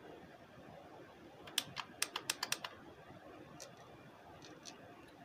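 Volume knob of a Sony Xplod car stereo head unit clicking under the fingers as it is turned and pressed: a quick run of about eight clicks, then a few fainter ones. The control works only intermittently.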